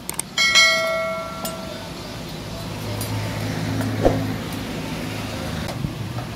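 Hand hammer striking a sickle blade on a steel anvil block: a couple of light taps, then one loud blow whose metallic ring dies away over about a second. After that a low steady engine hum of a passing vehicle rises in the background, with one more small knock about four seconds in.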